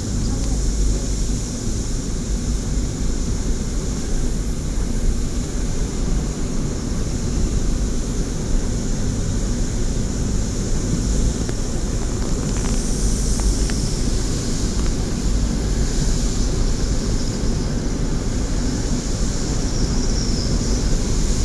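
Steady road and engine noise heard from inside a moving car, a constant low rumble with a high steady hiss above it.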